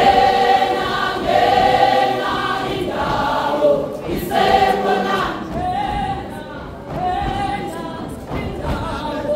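A large women's church choir singing together in phrases of held notes, with short breaks between the phrases.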